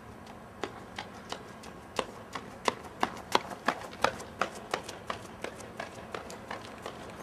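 Footsteps on a hard surface: sharp, even taps about three a second, growing louder towards the middle and then fading away as the walker passes.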